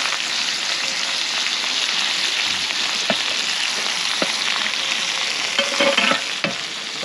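Short rib steaks sizzling steadily in a hot cast-iron grill pan. A metal spoon clicks lightly against the pan a few times near the middle and near the end.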